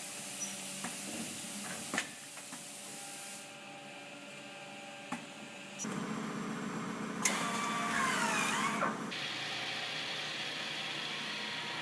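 Woodworking shop machinery running in several short stretches that change abruptly: steady machine hums and hiss, a few sharp knocks, and a louder passage about six to nine seconds in with pitches gliding up and down.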